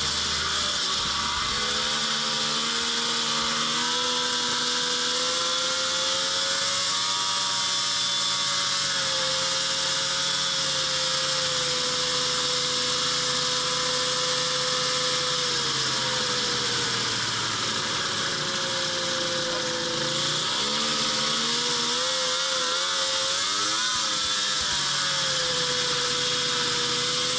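Snowmobile engine and track running at cruising speed. The engine note holds steady, dips and climbs back as the throttle is eased, and wavers up and down several times about twenty to twenty-five seconds in.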